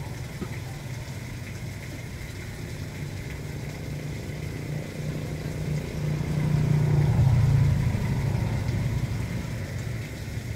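A motor vehicle engine running nearby, growing louder about six seconds in and fading again by about nine seconds, over rainwater running through a barred street drain.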